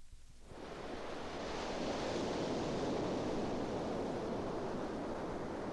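Sound-effect recording of ocean surf: a steady wash of wave noise that fades in about half a second in and holds.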